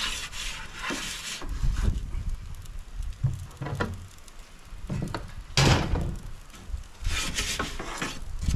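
Metal turning peel scraping over the stone floor of an Ooni Koda 16 gas pizza oven as the pizza is turned, in several short scrapes, the sharpest about two-thirds of the way through. A low steady rumble runs underneath.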